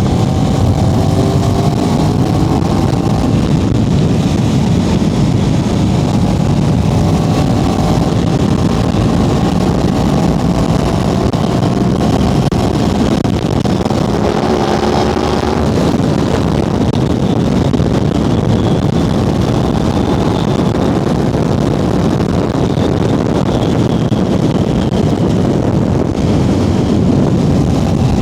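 Aprilia RS660 Extrema's parallel-twin engine running under way, under a steady rush of riding noise. The engine note climbs slowly several times.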